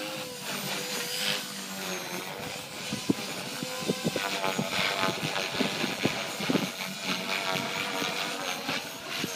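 Blade 450 X electric RC helicopter flying, its rotor and motor making a whine whose pitch wavers up and down as it is held against strong wind. Wind buffets the microphone with scattered thumps.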